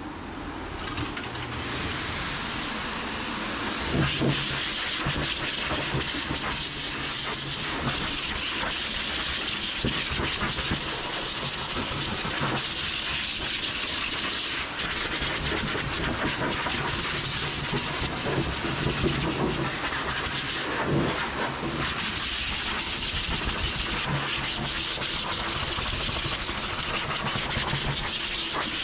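High-velocity dog grooming dryer blowing air through its hose and nozzle onto a wet schnauzer's coat: a steady airy hiss with a low hum, drying the dog after its bath. It comes on right at the start and grows louder about four seconds in as the nozzle works over the coat.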